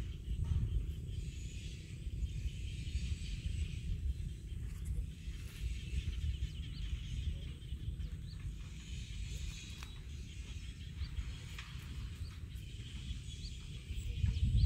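Outdoor field ambience: a steady low rumble of wind on the microphone under a continuous high chirring, with a few short high chirps scattered through.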